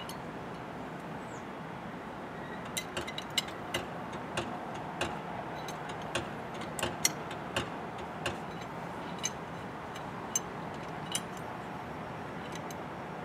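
Scattered sharp metallic clicks and taps, about fifteen over several seconds, from a Speedy-Bar transfer handle being handled and fitted into the car's door latch striker. Steady background traffic hum underneath.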